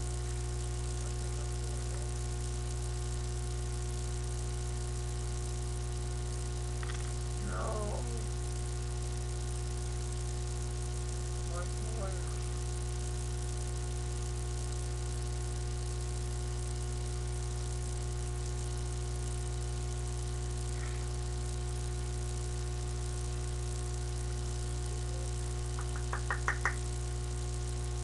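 Steady electrical hum made of many fixed tones, with a quick run of five or six knocks that grow louder near the end.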